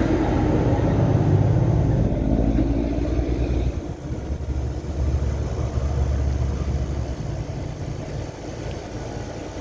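A semi truck's diesel engine going by: a loud low rumble whose pitch shifts about four seconds in, then fading toward the end.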